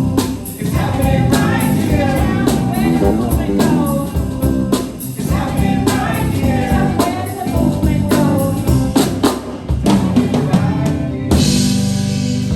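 Nine-piece live band playing a song with singing and a drum kit keeping a steady beat. A little over a second before the end, the music changes to a held chord under a bright, noisy wash.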